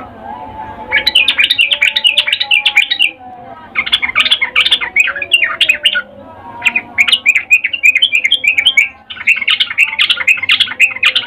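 Yellow-vented bulbul (trucukan) giving four bouts of rapid chattering call notes, each lasting about two to three seconds with short pauses between. This is the female's in-heat 'ngecuplik' call, used as a lure to set males singing.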